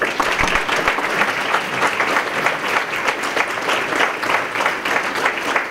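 Audience applauding: a dense, even patter of many hands clapping.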